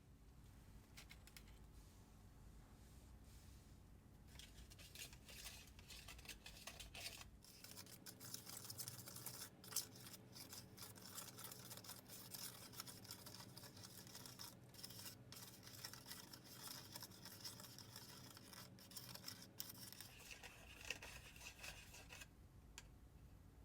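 Faint, rapid scratching and scraping of a small plastic spoon stirring ingredients in the plastic tray of a DIY candy kit. It starts about four seconds in and dies away a little before the end.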